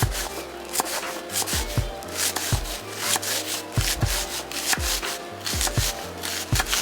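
Knife chopping and scraping red onion on a cutting board, many quick uneven strokes, over background music with a steady beat.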